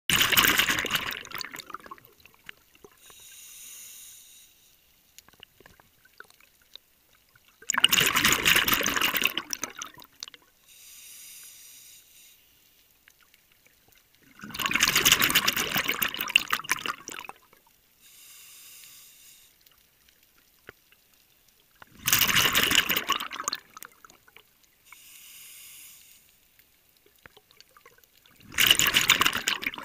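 A scuba diver breathing through a regulator underwater: a quieter hiss on each inhale, then a louder rush of exhaled bubbles lasting about two seconds, repeating about every seven seconds, five exhales in all.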